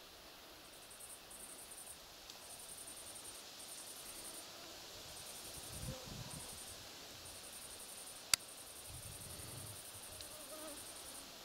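Crickets chirping faintly in repeated high-pitched bursts, with one sharp click late on.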